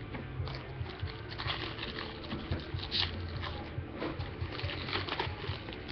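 Baseball trading cards being handled and a foil card pack being opened: crinkling wrapper and sliding, flicking cards, a steady run of small rustles and clicks.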